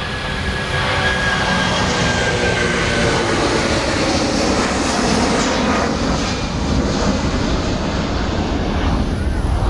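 Jet airliner's engines running loud, a dense roar that builds over the first second and then holds steady, with a thin high whine that fades after about two seconds.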